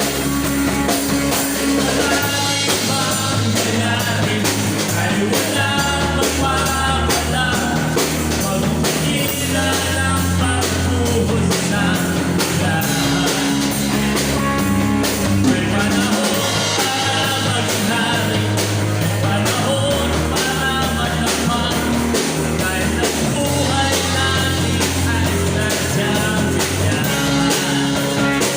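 Rock music with guitar, drums, a bass line and singing.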